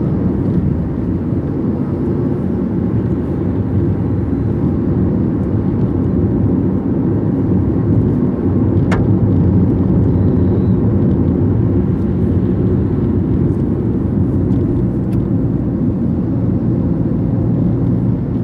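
Car driving along a highway: steady low rumble of road and engine noise.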